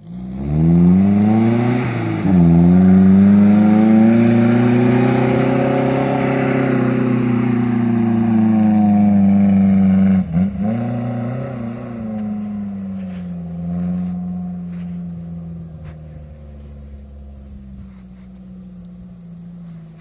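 Suzuki SJ410's swapped-in Nissan A14 four-cylinder engine revving hard under load as it climbs a sand dune. The revs climb, drop sharply and pick up again about two seconds in, hold high, dip once more about ten seconds in, then the engine fades as the vehicle pulls away.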